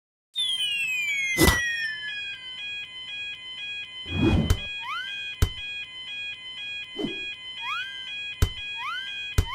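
Synthesized cartoon sound effects: a falling whistle-like tone, then a repeating pattern of steady electronic beep tones, alarm-like, with short rising swoops. Sharp clicks and a couple of whooshes are scattered through it.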